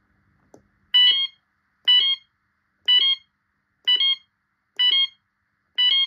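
Fire alarm sounders giving six short pulsed bursts, about one a second, starting about a second in, each a quick two-step tone: the short alert that signals the end of a fire alarm test.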